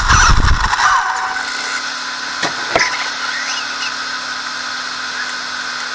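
RC car, heard from its onboard camera, running hard on loose dirt and then slowing to a stop within the first second. After that a steady thin whine with a low hum from the stopped car, with two sharp clicks about two and a half seconds in.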